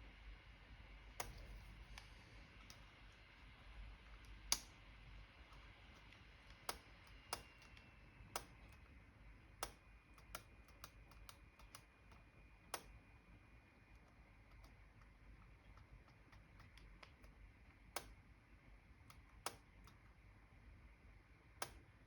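Dell Latitude E7440 replacement keyboard's keys being pressed one at a time to test them: about a dozen sharp clicks at uneven gaps over a quiet background. The page down key is sticking on this new keyboard.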